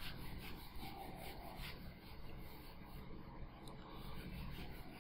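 A felt whiteboard eraser rubbing back and forth across a whiteboard in faint, repeated strokes.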